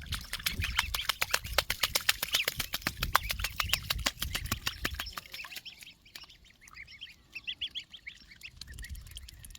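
An animal calling in a rapid run of short, sharp sounds, about six or seven a second, which thins out after about five seconds into sparser, softer, higher-pitched calls.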